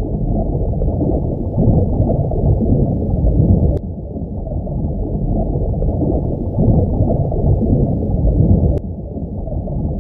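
Underwater ambience: a muffled, deep rush of water that swells and ebbs, with brief jumps in level about four seconds in and again near nine seconds.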